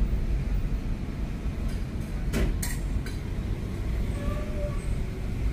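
Car cabin road noise: the steady low rumble of a car's engine and tyres heard from inside while driving, with two sharp clicks about two and a half seconds in.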